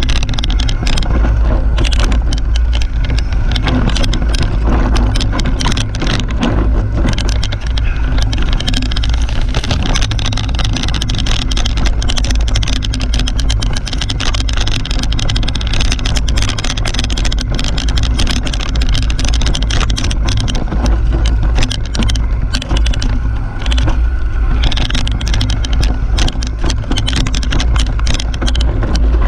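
Mountain bike riding fast down a dirt singletrack: heavy wind rumble on the action-camera microphone, with tyre noise on the dirt and a constant stream of clicks and rattles from the bike over the rough ground.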